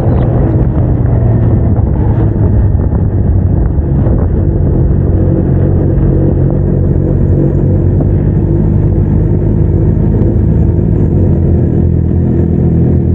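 Suzuki GSX-R750 inline-four motorcycle engine running steadily at low revs while the bike rides slowly, its note staying fairly even with only small rises and falls.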